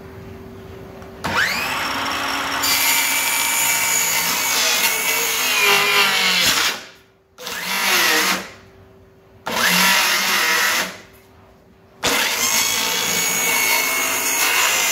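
Milwaukee cordless circular saw spinning up with a rising whine and cutting into plywood. It stops about six and a half seconds in, runs in two short bursts, then starts again near the end and keeps running.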